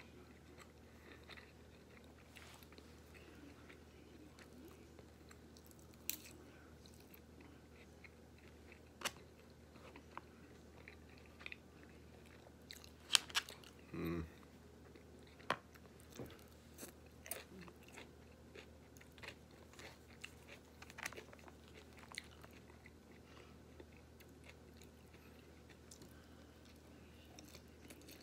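A person chewing and eating chow mein noodles with a plastic fork, quietly, with scattered sharp clicks and taps, the loudest about halfway through.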